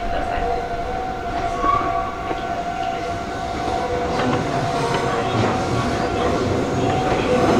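Meitetsu electric train running on the rails at a station, its low rumble of wheels and running gear growing louder from about four seconds in. A few steady tones sound throughout.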